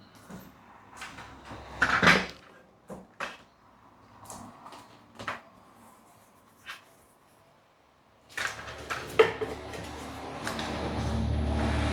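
A series of sharp knocks and clicks from parts and doors being handled, the loudest about two seconds in, then a low rumble that builds up near the end.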